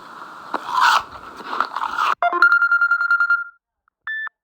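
A couple of seconds of crunchy, rustling noise, then an electronic phone tone: a fast-pulsing beep at one steady pitch for about a second, and a short single beep near the end.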